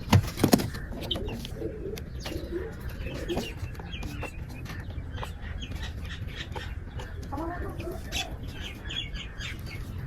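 Pigeons and other birds calling, with many short chirps and low clucking or cooing notes. Two loud flutters or knocks come in the first half-second, like wings beating.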